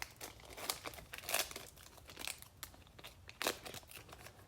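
Plastic crinkling and rustling from trading card packs and cards being handled, irregular crackles with a couple of louder crinkles about a second and a half and three and a half seconds in.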